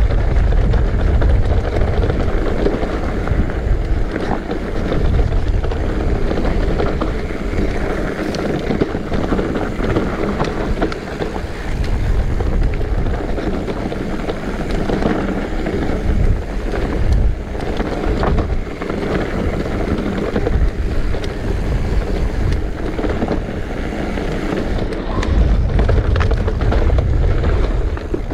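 Wind buffeting an action camera's microphone while an electric mountain bike rides down a rough trail. The tyres rumble on the ground and there are many small knocks and rattles from the bike over bumps.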